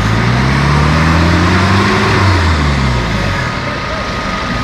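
Off-road 4x4's engine revving up over about two seconds, then dropping back down.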